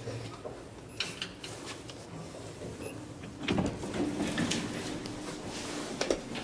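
Sliding doors of a 1998 KONE traction elevator working: a few light clicks, then about three and a half seconds in a knock and a steady hum of the door mechanism for about two seconds, with a sharp click near the end as a car button is pressed.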